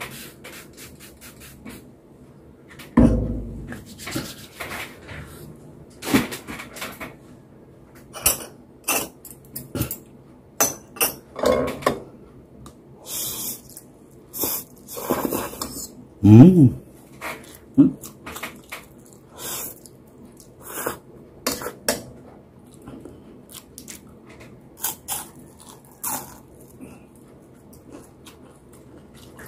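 Eating sounds: a fork clicking and scraping against a ceramic bowl of pancit canton noodles, with slurping and chewing in between. A short low hum about halfway through is the loudest sound.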